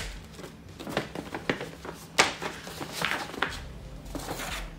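A gift package being opened by hand: a string of short rustles, clicks and taps of paper and packaging, with one sharper click about two seconds in.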